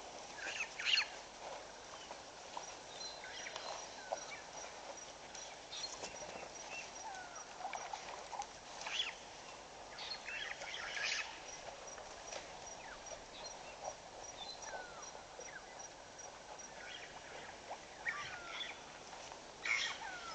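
Mixed wild birds calling: scattered short chirps and whistles, with a thin high pip repeating about three times a second for several seconds, twice.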